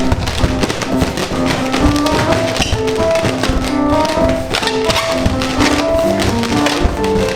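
Background music: a light melody of short notes over a steady tapping beat.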